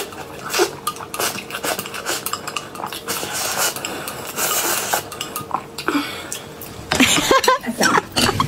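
Chopsticks clicking and scraping against a glass bowl as food is shoveled from it, with a cluster of louder clinks near the end as the bowl is set down on a plate.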